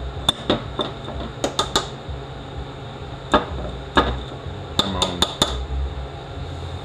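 Center punch being struck with a hammer against a 6L80E transmission pump, staking its drill hole: about a dozen sharp, irregular metal taps in small clusters.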